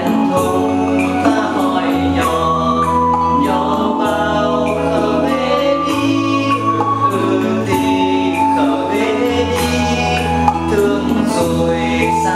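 A song with singing over sustained chords and a bass line that moves to a new note every couple of seconds.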